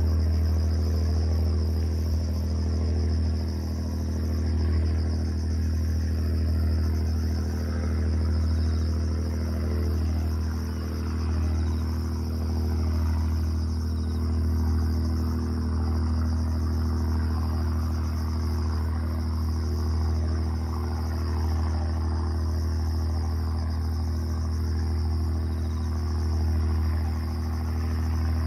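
A small fishing boat's engine running steadily under way at speed, a low droning hum that does not change. Insects chirp in a high band over it.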